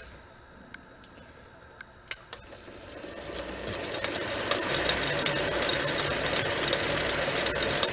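A sharp click about two seconds in, then a metal lathe's motor and spindle spinning up and running steadily, with a low hum and a thin high whine.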